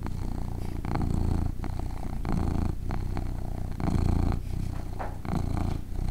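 A domestic cat purring close up: a low rumble that swells and eases about every second and a half with its breathing in and out.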